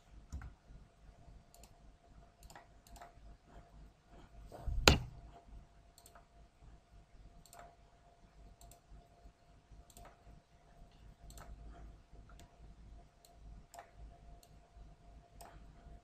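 Computer mouse buttons clicking at irregular intervals while drawing in CAD software, with one louder knock about five seconds in. A faint steady hum runs underneath.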